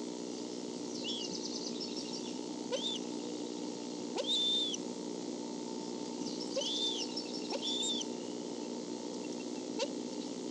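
Bald eagle calling at the nest: about five short, high, arched chirps, a couple run together with rapid chittering, over a steady low hum.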